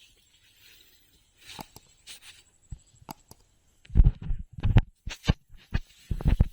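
Irregular wet splashes and squelches of water and mud being stirred, with heavier thumping clusters about four seconds in and again near the end.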